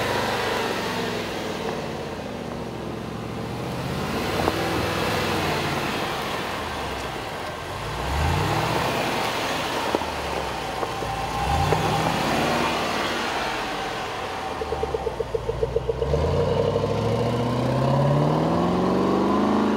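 Supercharged V8 of a 2014 Range Rover Sport driving slowly on a dirt trail, its revs rising several times and climbing longer near the end, with tyre noise on the dirt underneath.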